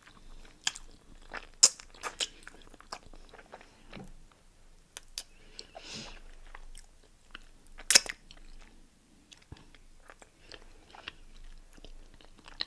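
A person eating a pig-foot boil close to the microphone: chewing and biting with wet mouth clicks and smacks. Two sharper, louder snaps stand out, about two seconds in and again about eight seconds in.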